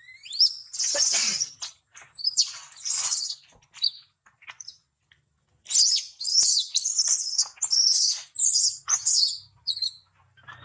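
A baby macaque gives shrill, high-pitched distress screams while an older monkey drags and handles it roughly. There are a few rising and drawn-out cries at first, then after a short pause a rapid string of short screeches.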